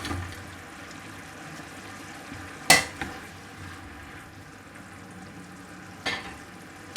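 Fried chicken pieces being stirred into a thickening soy-and-ketchup sauce in a hot pan, with a steady sizzle throughout. A spatula knocks sharply against the pan once about three seconds in, the loudest sound, and again near the end.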